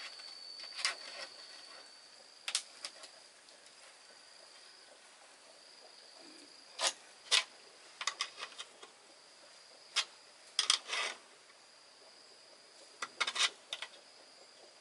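A steady, high-pitched insect drone, with irregular sharp knocks on top, some single and some in quick clusters; the knocks are the loudest sounds.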